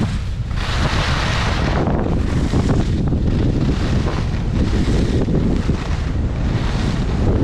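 Wind buffeting the camera microphone during a fast ski descent, a heavy steady rumble, with the hiss of skis sliding over groomed snow that swells about a second in.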